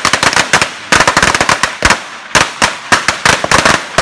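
A string of firecrackers going off in rapid, irregular bangs, many per second, with short lulls about one and two seconds in.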